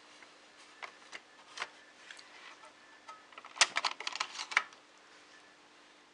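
A few scattered sharp clicks, then a quick irregular flurry of clicks and taps about three and a half seconds in, over a faint steady hum.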